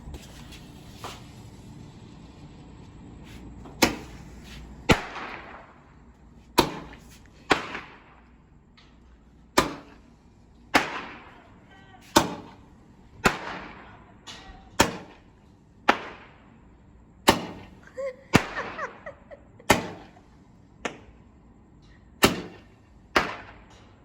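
Small consumer firework going off in a series of about twenty sharp pops at irregular intervals of roughly a second, each trailing off in a short fading hiss.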